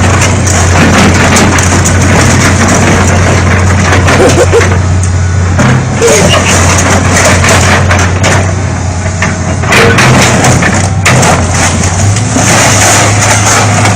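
A 20-ton excavator's diesel engine runs steadily under load while a car body is crushed, with repeated crunching and cracking of metal and a few short squeals.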